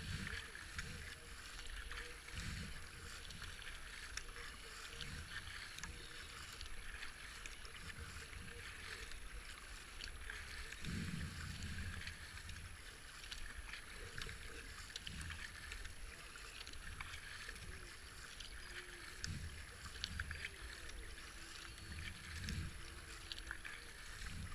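Kayak being paddled: paddle blades dipping and splashing, with water rushing steadily along the hull and low thumps every second or two.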